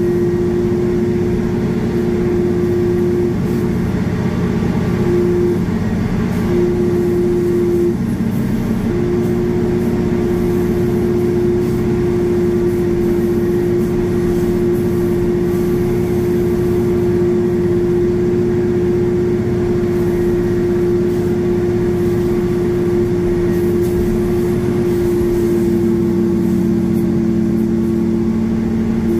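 Pushback tug running steadily under load as it pushes a Boeing 787-9 backward, a loud continuous drone with a constant hum that drops out briefly a few times in the first eight seconds.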